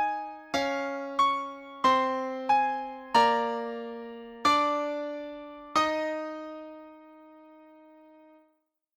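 Keyboard playing slow, separate piano-toned notes, a new note struck about every two-thirds of a second, each ringing and fading. The last note, about six seconds in, rings out and dies away to silence.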